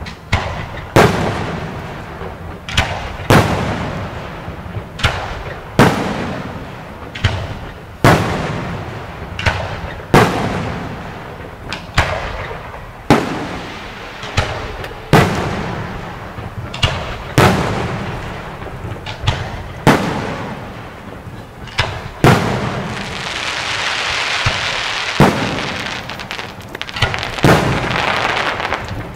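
Aerial firework shells bursting one after another, a sharp bang every second or two, each trailing off in echo. Late on, a steady hiss lasts several seconds under the bangs.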